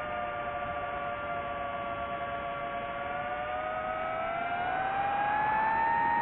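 DJI FPV drone's motors and propellers whining steadily in flight, several close tones together. Rising in pitch about four seconds in and getting a little louder as the throttle goes up.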